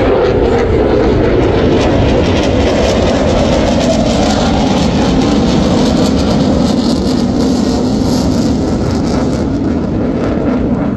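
Jet aircraft with its afterburner lit, engine noise loud and steady. The pitch drops over the first few seconds as it passes and moves away, then holds.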